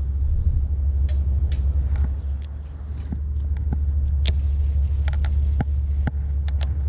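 A steady low rumble, with scattered light clicks and ticks as a baitcasting reel and jig are handled.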